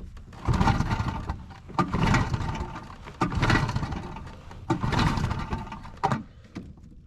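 Small boat outboard motor being pull-started without catching: five hard rope pulls about every second and a half, each cranking the engine briefly before it dies away. It fails to start because the control was not set to the start position.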